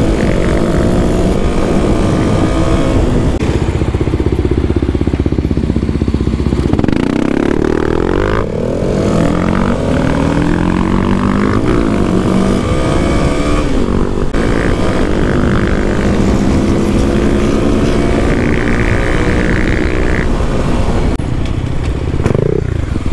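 Kawasaki KLX300's single-cylinder four-stroke engine running under way, its pitch climbing and falling repeatedly as the bike is revved and shifted, with a steep rise about a third of the way in.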